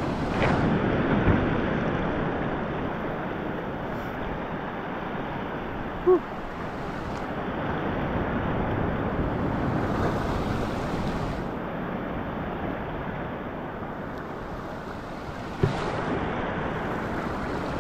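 Ocean surf breaking and washing over a rocky reef flat: a steady rush of waves that swells around the middle, with wind buffeting the microphone. There are two brief sharp sounds, one about six seconds in and one near the end.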